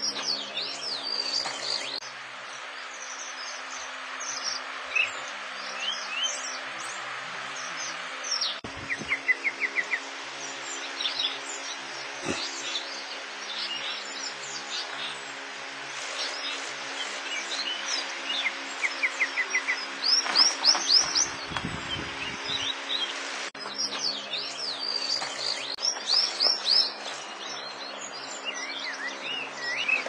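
Songbirds chirping and singing, several voices overlapping, with short fast trills about 9 and 19 seconds in and a louder run of chirps around 20 seconds, over a faint steady low hum.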